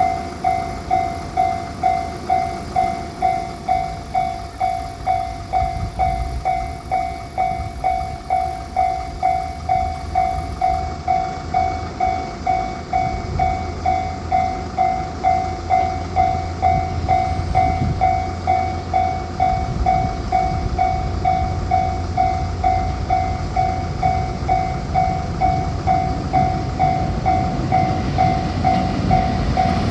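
Railroad crossing's electronic warning bell ringing steadily, a little under two dings a second. Under it a train's low rumble builds and grows louder as the train approaches.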